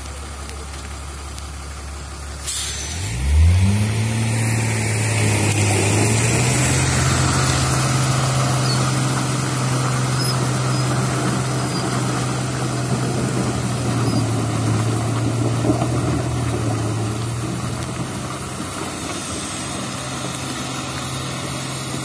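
Diesel engine of a Tata semi-trailer truck idling, then a sudden air-brake hiss about two and a half seconds in, after which the engine revs up and runs steadily under load as the truck pulls its loaded trailer away.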